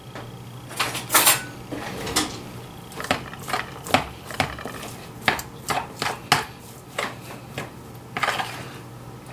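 A kitchen utensil clicking and tapping irregularly against a dish while shredded pork is scooped out, over a steady low hum.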